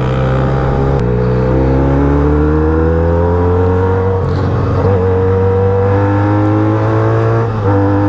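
Benelli 302S motorcycle's parallel-twin engine running under way, its pitch climbing slowly as it pulls through a gear, with a change in engine note about a second in and again near the end.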